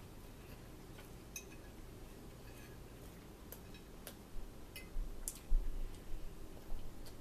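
A fork tapping and clicking against a plate during a meal, sharp little clicks every second or so. Several dull low thumps on the table come in the second half, the loudest a little past the middle.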